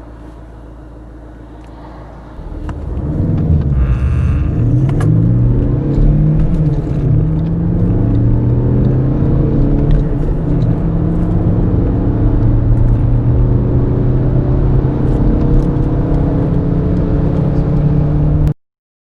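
Car engine accelerating hard from a standstill, its pitch rising and dropping back at each upshift as it pulls through the gears. It cuts off abruptly near the end.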